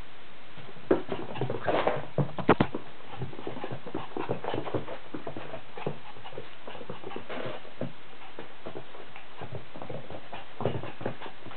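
Chihuahua playing with soft toys on a carpet: scattered light thumps and scuffles, with a few sharper knocks about two and a half seconds in.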